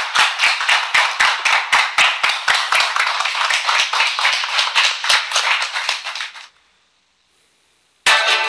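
Studio applause from a small group, dense steady clapping that cuts off about six and a half seconds in. After a short silence, music starts right at the end.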